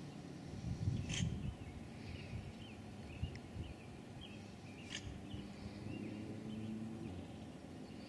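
North American river otter snorting twice, a short sharp huff about a second in and another about five seconds in. Faint bird chirps sound in the background.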